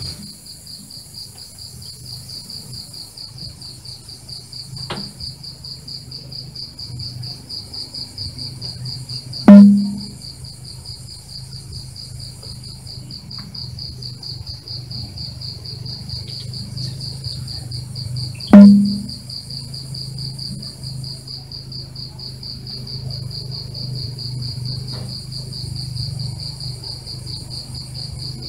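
Crickets chirping steadily, broken twice by a loud, sharp shot from an Air Force Condor PCP air rifle, the two shots about nine seconds apart.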